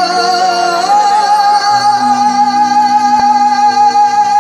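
Live Punjabi singing through a PA system: a male singer holds one long note with a wavering vibrato over sustained accompaniment chords that shift in steps beneath it. There is a single click about three seconds in.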